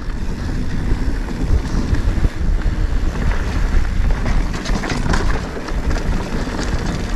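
Mountain bike riding on a dirt trail: wind buffeting the camera's microphone over the rumble of the tyres, with scattered small clicks and rattles from the bike.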